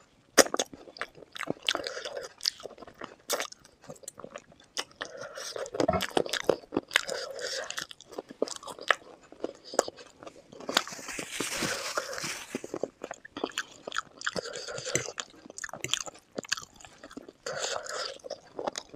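Close-miked ASMR eating of chicken feet curry and Maggi noodles: chewing and biting with many sharp crunches and wet mouth sounds, and a denser, continuous noisy stretch about eleven to twelve seconds in.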